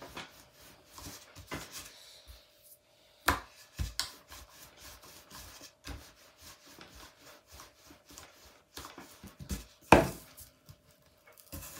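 Rolling pin rolling out wrap dough on a floured table: soft rubbing and rolling with small clicks, and a few sharp knocks of the pin against the table, the loudest about ten seconds in.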